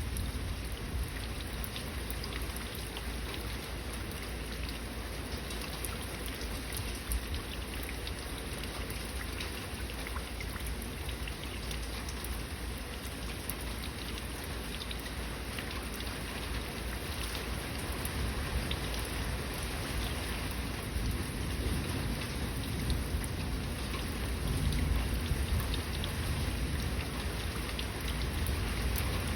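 Steady heavy rain falling, many fine drops pattering on surfaces, over a low rumble of thunder that swells a little past the middle.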